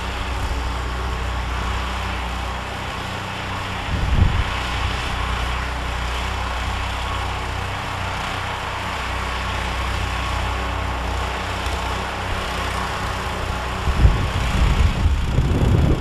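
John Deere 1032 snowblower with a 16 hp engine, running steadily. A louder low rumble comes about four seconds in and again near the end.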